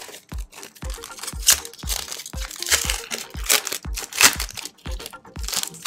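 Foil booster-pack wrapper of Japanese Pokémon cards crinkling and tearing as it is pulled from the box and ripped open by hand, in a run of loud crackling bursts. Background music with a steady beat runs underneath.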